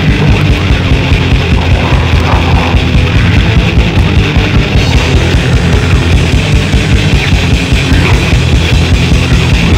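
Loud, dense 1993 grindcore/death metal recording, with distorted guitars and fast, driving drums beating a rapid even pulse in the low end.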